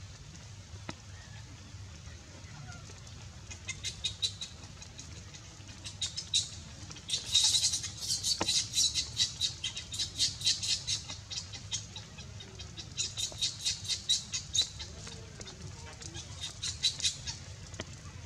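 An animal's high-pitched chirping calls: quick runs of short chirps, several a second, starting a few seconds in, loudest around the middle and dying away near the end.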